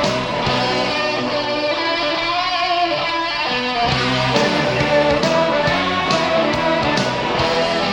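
Guitar-led music played from a vinyl record on a Treton turntable radio, heard through its speakers. The deep bass thins out for a couple of seconds and comes back about four seconds in.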